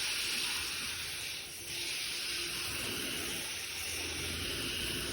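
Soft-wash spray hissing steadily as a 3% sodium hypochlorite (SH) solution is sprayed onto a wood fence, with a short break about a second and a half in.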